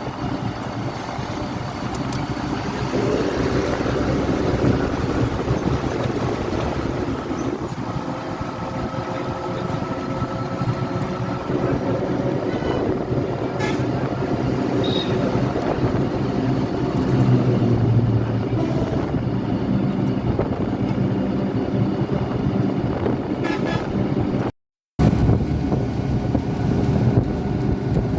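Busy road traffic: engines of cars and trucks running and passing, with vehicle horns tooting now and then. The sound cuts out completely for a split second near the end.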